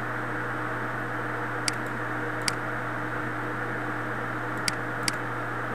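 Four short computer-mouse clicks, with uneven gaps between them, over a steady hiss and low electrical hum of the recording.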